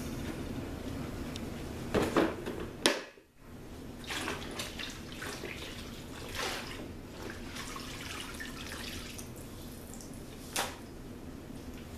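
Wet spin mop swishing across a kitchen floor in repeated strokes, with a few sharp knocks, over a steady low hum.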